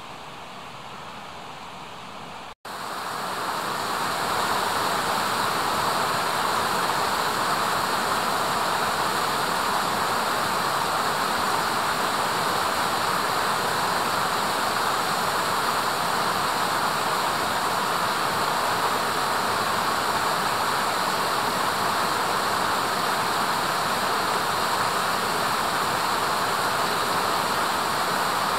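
Steady rush of flowing water, an even hiss with no distinct events. It is fainter at first, breaks off for an instant about two and a half seconds in, then returns louder and holds steady.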